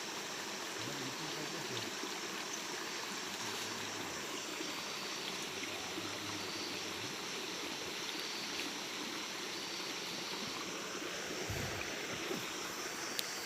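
Steady rush of flowing stream water, with a single sharp click near the end.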